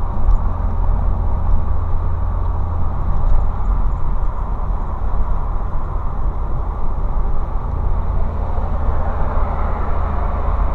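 Steady road and engine noise from inside a moving car: a constant low rumble with tyre hiss, swelling slightly near the end.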